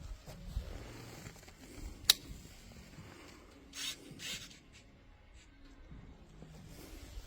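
Quiet handling noises with no engine running yet: one sharp click about two seconds in, then two short rustling scrapes a little later, over a faint low rumble.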